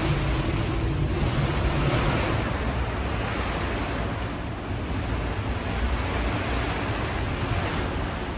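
Hurricane wind blowing hard over rough water, a steady dense rush that buffets the microphone.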